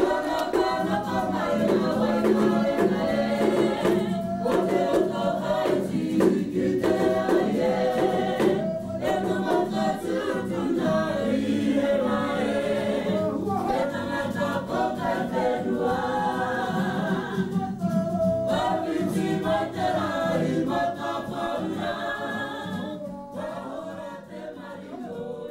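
Background music with singing voices, fading down near the end.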